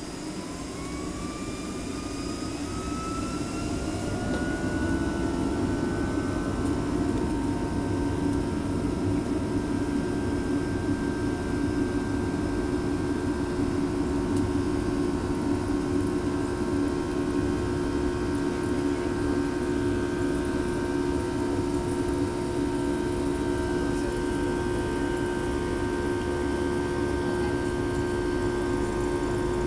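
An airliner's jet engines heard from inside the cabin, spooling up for takeoff: a whine rises in pitch and the sound grows over the first five or six seconds. The engines then run steadily at takeoff power, with a constant whine over a rumble as the plane rolls down the runway.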